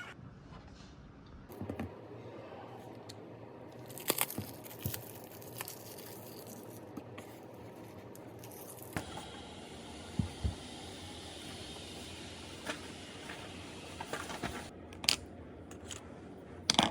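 Scattered small clicks, knocks and rustles, as of objects being handled, over a steady room hum. The background changes abruptly a few times.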